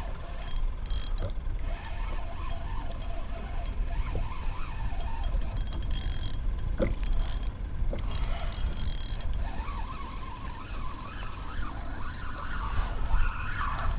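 Fishing reel whirring and clicking as a hooked snook is fought on a bent rod, over wind rumbling on the microphone.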